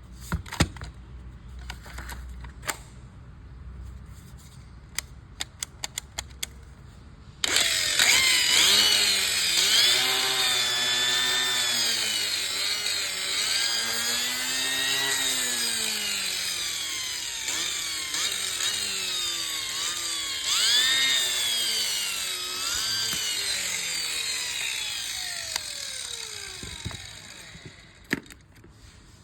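Makita cordless angle grinder motor starting abruptly and running, its pitch wavering up and down as the speed changes, then winding down near the end. Before it starts, light clicks and taps of the tool being handled, including a quick run of about six clicks.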